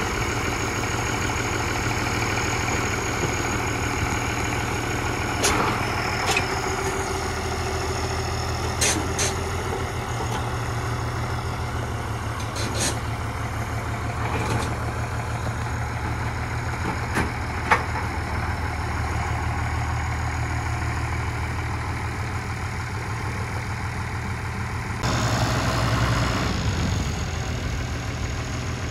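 Diesel engine of a 1977 International Harvester 986 tractor running steadily at low speed as the tractor is driven off a flatbed trailer, with a few sharp clunks along the way.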